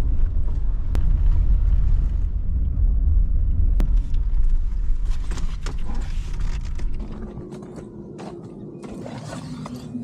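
Low rumble of a car on the move, which eases off about seven seconds in. A few sharp clicks and rustles follow.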